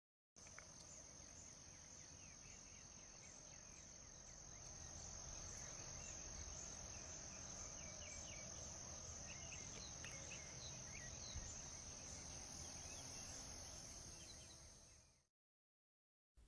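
Faint evening outdoor ambience: crickets trilling steadily on one high note, with scattered short chirps over it, fading in just after the start and fading out near the end.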